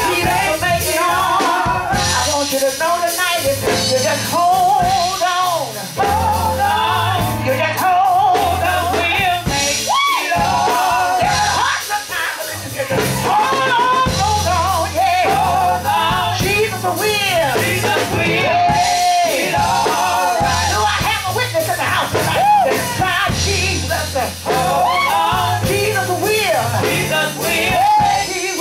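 Live gospel music: a woman singing lead into a microphone over keyboard and drum kit, with a steady bass line underneath.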